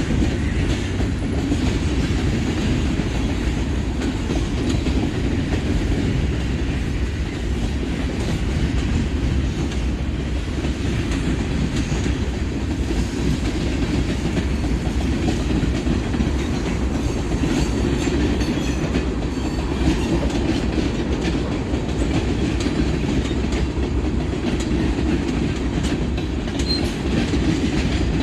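Norfolk Southern manifest freight train rolling past, a steady rumble of freight cars with their wheels clicking over the rail joints.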